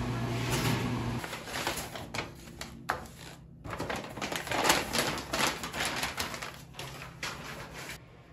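Paper takeaway bag rustling and crinkling as it is handled and unpacked on a table: a dense run of crackles and light taps. For about the first second there is steady café background with a low hum.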